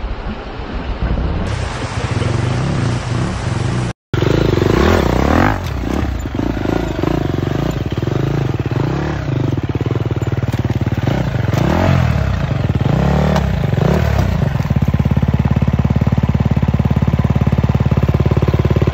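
Husqvarna 300 TPI two-stroke enduro motorcycle engine revving up and down in repeated bursts as the bike climbs onto a log, then held at a steady speed for the last few seconds. The sound breaks off briefly about four seconds in.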